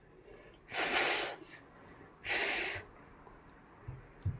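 A child's breathy, hissing exhalations, two short bursts about a second and a half apart, with a couple of soft thumps near the end.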